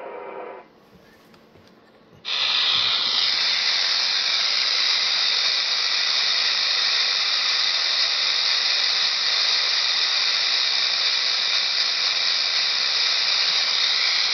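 Radio receiver's speaker giving loud, steady static hiss with no signal in it, as on an empty 10-meter band; it starts suddenly about two seconds in. Just before, there is a brief cluster of steady tones, then a short pause.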